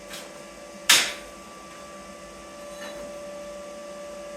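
A single sharp knock about a second in, with a faint tap near the start and another near three seconds, over a steady electrical hum.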